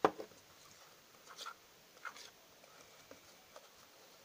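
Teaspoon and fingers working a thick flour-and-water dough in a stainless-steel bowl: one sharp knock at the start, then faint, scattered scraping and scratching as the mixture is stirred and kneaded.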